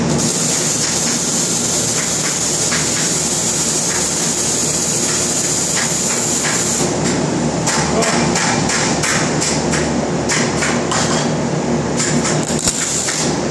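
Welding arc at a steel fixture, a steady crackling hiss for about the first seven seconds, then stopping. After that come many irregular sharp metallic clicks and knocks over a steady shop machinery hum.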